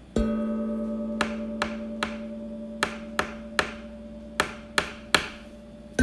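Sharp ticking clicks in groups of three, about 0.4 s apart with a short pause between groups, over a long low ringing musical note that sounds just after the start and slowly fades; a new note is struck at the very end.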